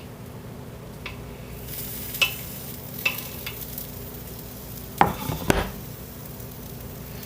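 An omelette frying in a pan, with a fine sizzle that comes in about two seconds in over a steady low hum. Light clicks of a utensil on the pan are heard, then two louder knocks and scrapes about five seconds in.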